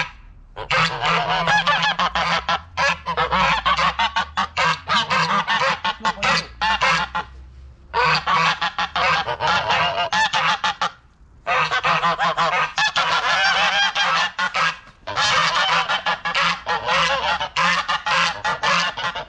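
A flock of domestic geese honking loudly and almost without a break, with short lulls about 8 and 11 seconds in.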